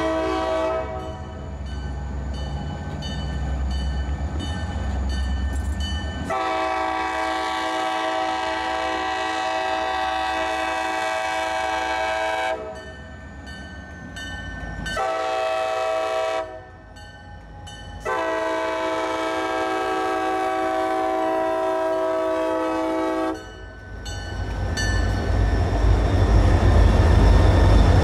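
Diesel freight locomotive air horn sounding four blasts, long, long, short, long, the grade-crossing signal. Then the locomotives' engines rumble loudly as they pass close by, rising near the end.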